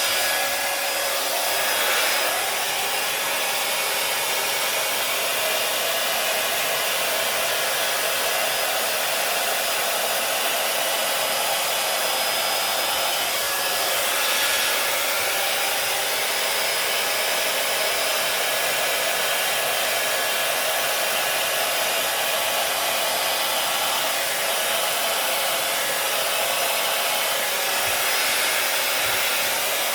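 Hair dryer with a flat-faced nozzle attachment blowing steadily, swelling slightly a couple of times, as it pushes a fluid acrylic paint pour across a canvas.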